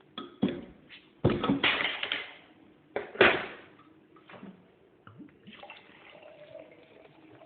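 Beer poured into a glass in two loud splashing gushes, then the head fizzing faintly and steadily from about halfway in.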